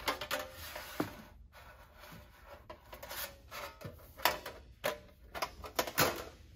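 Thin aluminum rudder skins of a homebuilt aircraft being picked up and turned over by hand: sheet metal rubbing and sliding with a scatter of light taps and clicks, the sharpest a little past four seconds and around six seconds in.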